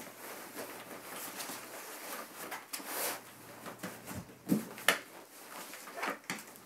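Fabric rustling and a padded mattress pad brushing as it is pressed around a folded plastic co-sleeper frame, with two sharp knocks a little past halfway.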